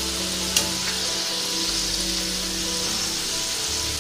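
Hot oil sizzling steadily, as of potato fries deep-frying, under soft background music, with one sharp click about half a second in.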